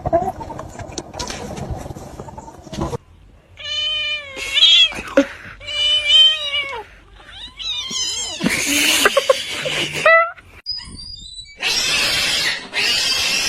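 A domestic cat yowling: several drawn-out meows that bend up and down in pitch, followed near the end by two loud, long hissing bursts.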